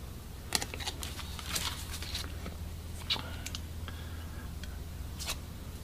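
Cardboard football trading cards being slid and flicked through by hand: a handful of short card snaps and rustles, scattered irregularly, over a steady low hum.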